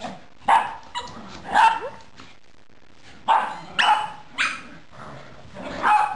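Rat terrier barking: about seven sharp barks in three bursts, three, then three, then a single bark near the end, with a pause of about a second between bursts.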